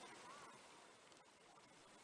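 Near silence: faint outdoor hiss, with one brief faint call about half a second in.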